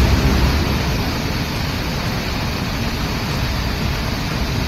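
Floodwater of a rain-swollen hill stream in spate, rushing past in a steady, loud wash of turbulent water.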